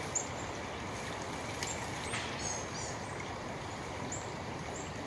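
Steady rushing of a woodland stream, with short high bird chirps scattered through it.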